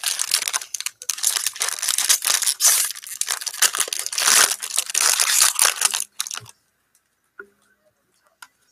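Foil trading-card pack wrapper being torn open and crinkled by hand, a dense crackling that stops about six seconds in. A few faint clicks follow as the cards come out.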